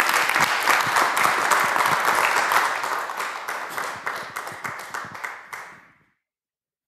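Audience applauding, the clapping slowly thinning out and stopping about six seconds in.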